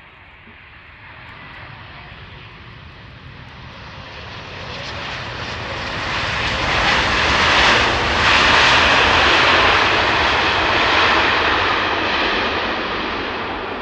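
Wide-body jet airliner on landing approach passing close by, its engine roar building steadily to a peak about eight seconds in, then fading.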